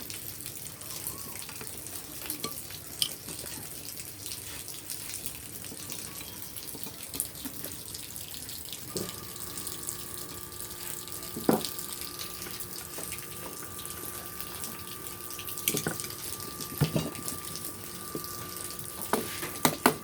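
Scattered sharp clinks and knocks of metal engine parts being handled as the cylinder block is taken off a Honda TMX 155 engine, over a steady hiss. A faint steady hum joins about halfway through.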